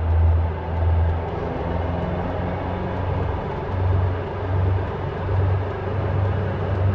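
Caterham Super Seven 1600's engine running steadily: a low drone that swells and fades in a slow beat, a little more than once a second, evening out for a couple of seconds in the middle.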